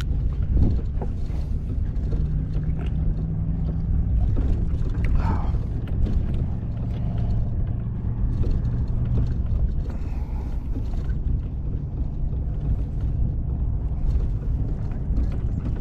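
An engine running steadily: a low rumble with a constant hum, and a few light clicks and knocks over it.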